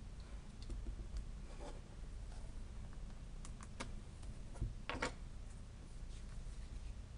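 Scattered light clicks and taps as stamping supplies are handled on a tabletop stamping platform: an ink pad, the card and the platform, with a louder cluster of taps about five seconds in. A low steady room hum sits underneath.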